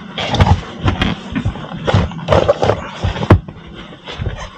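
Irregular rubbing and squeaking of heavy rubber, with a few sharp knocks, as the flap is worked out of a large crane tyre.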